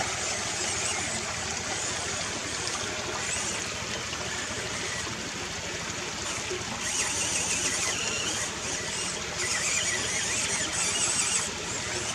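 Small electric motor and gear drivetrain of a 1:18-scale FMS Toyota Hilux RC crawler whining as it crawls over creek rocks, with a high whine that comes in spurts in the second half as the throttle is worked.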